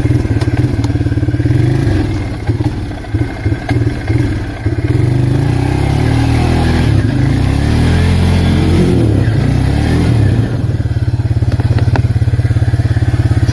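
Arctic Cat 366 ATV's single-cylinder four-stroke engine idling, then blipped unevenly a few times and held at higher revs with a rising and falling pitch for about five seconds before dropping back to idle. The machine is stuck in snow and being driven to break free.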